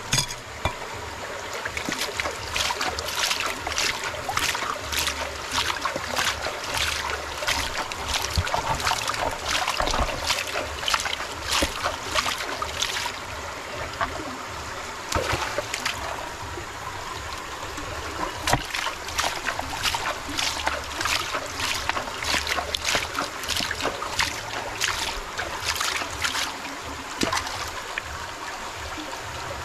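Muddy water sloshing and splashing in a gold pan as ore rocks are scrubbed and rinsed by hand, in many short, irregular splashes, over the steady sound of a shallow stream running.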